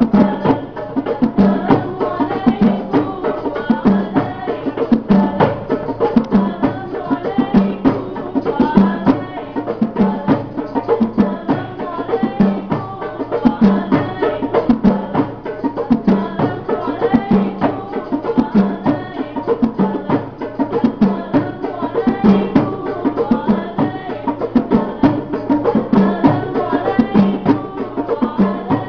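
Rebana frame drums played by hand in a steady, driving rhythm: a deep stroke about every two-thirds of a second with quicker, lighter slaps between. Voices sing a sholawat over the drumming.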